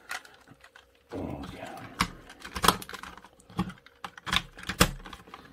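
Hard plastic parts of a vintage Shogun Megazord toy clicking and clacking as its zord pieces are fitted together by hand. About a second in comes a short rubbing scrape, then a handful of sharp separate clicks, the loudest near the end.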